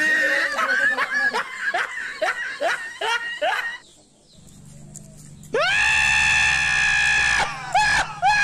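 A high-pitched voice shrieking with laughter in quick, falling yelps, then one long, steady, held scream, with a few short yelps near the end.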